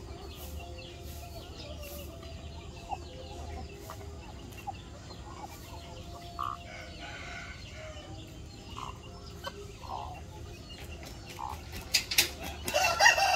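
A flock of hens and roosters clucking softly while feeding at a grain feeder, with scattered short calls. Near the end comes a louder burst of calls with a few sharp clicks.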